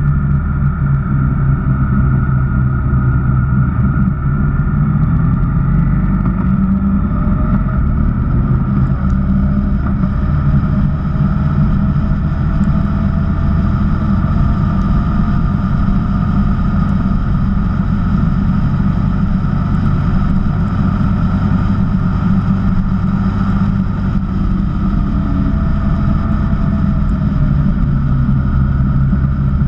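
Honda VFR1200X Crosstourer's V4 engine running at a steady cruise, its pitch drifting gently up and down, under a heavy rush of wind on the microphone.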